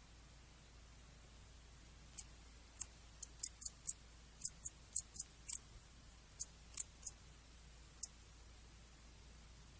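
Male Japanese false katydid (Holochlora japonica) calling: a run of about fifteen short, high, dry ticks at irregular spacing, some in quick clusters, starting about two seconds in and stopping a couple of seconds before the end.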